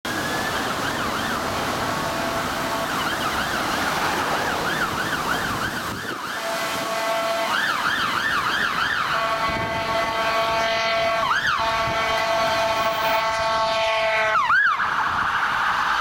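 Dublin Fire Brigade ambulance siren sweeping up and down in a fast yelp, joined by its air horn: a loud, steady chord of several tones. From a few seconds in, the horn is held almost without a break while the siren keeps sweeping over it.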